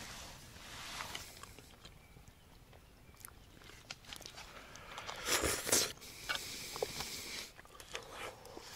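Someone eating close to the microphone: chewing and mouth sounds, with a few light clicks and a louder rustle about five seconds in.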